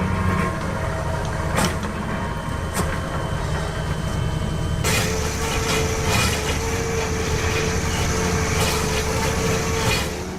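Heavy machine's engine running steadily. About five seconds in, a hiss and a steady whine join it.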